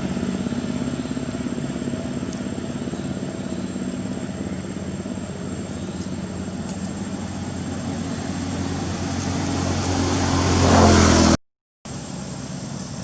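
A motor vehicle's engine running steadily, growing louder as it nears. About eleven seconds in the sound cuts off abruptly for a moment, then resumes more quietly.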